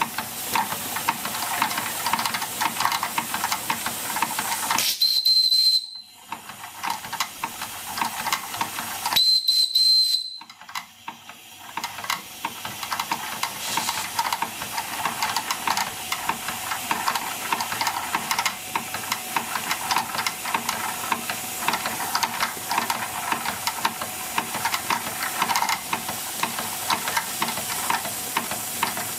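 Wilesco D24 toy steam engine running fast, its exhaust steam hissing with rapid, closely spaced beats. Two short, high steam-whistle blasts sound about five and nine seconds in.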